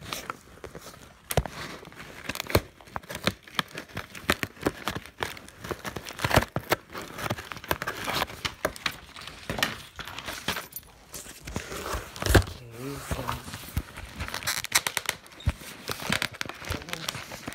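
Close handling noise: a steady run of crinkling, rustling and sharp clicks as fingers and cardboard rub right against the microphone while a cardboard shipping box is worked open.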